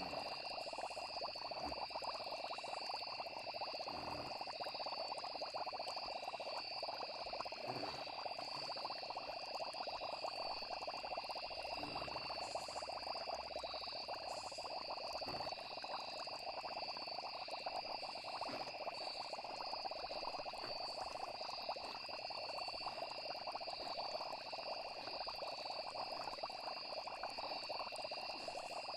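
Night chorus of frogs, with insects trilling steadily above it. A soft low thump or bubble comes every few seconds.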